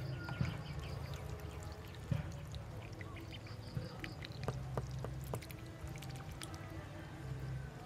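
Water splashing, trickling and dripping as ducklings paddle and dabble in a shallow plastic tub, with scattered small splashes and clicks.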